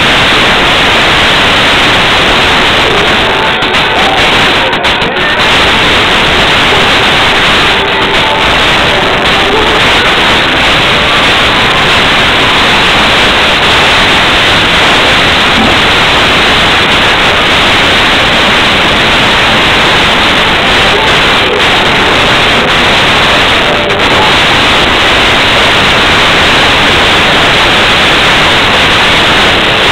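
Loud, steady hiss of noise with faint music underneath it.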